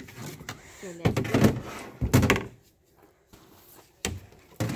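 Several dull knocks and thumps from a plastic Pelican kayak being handled, hands working at its seat and cockpit.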